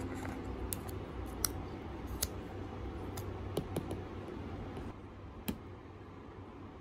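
Light clicks and taps of an Apple Pencil and its cardboard box insert being handled, several short sharp ticks spread out, the last one about five and a half seconds in as the pencil is set against the iPad's edge.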